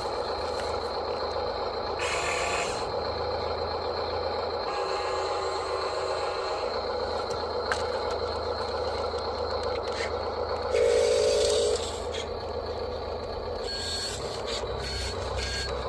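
Small electric motors and gears of radio-controlled construction models whirring steadily, with a brief louder pitched sound about eleven seconds in.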